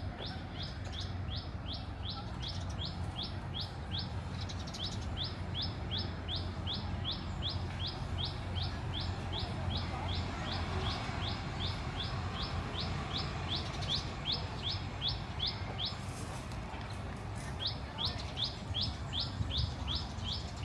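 A bird repeating one short, high chirp over and over, about three times a second, with a brief pause near the end, over a steady low background rumble.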